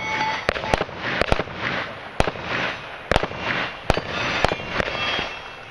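A string of handgun shots fired at steel plate targets: about nine shots over five seconds, unevenly spaced, some in quick pairs. Some hits leave a brief metallic ring from the steel.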